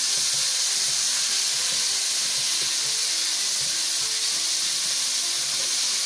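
Chicken wings deep-frying in hot oil in a wok on their second fry: a steady sizzle.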